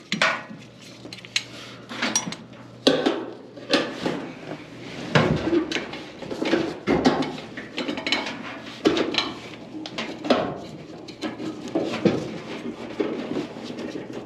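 Irregular metallic clanks, knocks and rattling as the clothes dryer's tension (idler) pulley and its sheet-metal parts are handled and fitted back in place.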